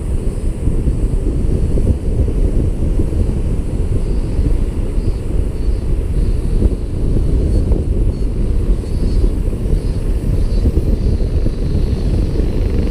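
Wind rushing over the microphone of a flying paraglider, a steady low rumble.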